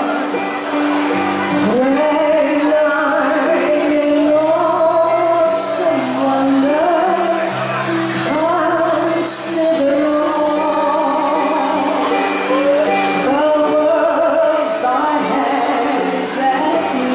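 A group of singers, women and men, singing a song to electronic keyboard accompaniment.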